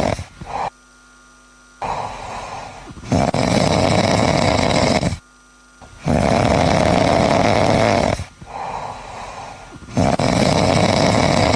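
Loud snoring in a slow, regular rhythm: three long snores of about two seconds each, one every three to four seconds, with softer breaths between them.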